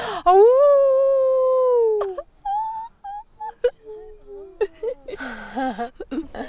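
A young woman's voice howling in imitation of a singing animal: one long note that slides down at its end, followed by a string of short high yips and hoots, with laughter near the end.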